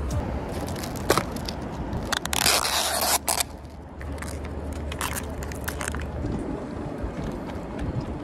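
Ice cubes in a plastic cup clinking and crackling as iced coffee is made: a straw stirs the ice, then liquid coffee is poured over it from a pouch. A loud rasping burst lasting about a second comes a little over two seconds in, followed by scattered sharp cracks and clicks of ice.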